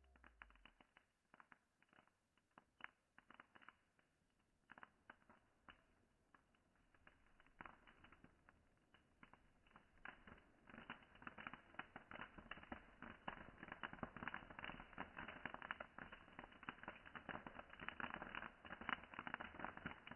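Wood campfire crackling: scattered sharp pops at first, building into dense, steady crackling about ten seconds in.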